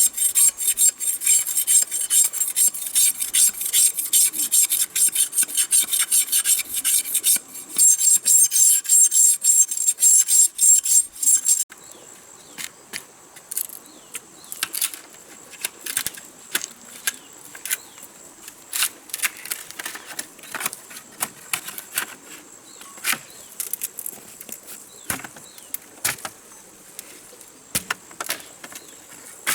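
Rapid, rhythmic rasping strokes of a hand tool working wood, about three a second with a brief break, stopping suddenly about twelve seconds in. After that come scattered light clicks and taps.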